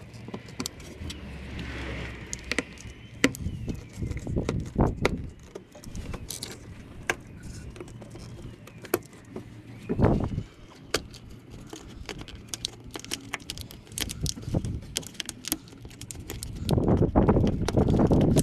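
Plastic clicks and rattles of a wiring harness in corrugated loom being handled and its clips pushed onto a radiator fan shroud. A few louder rustling bursts come through, the longest near the end.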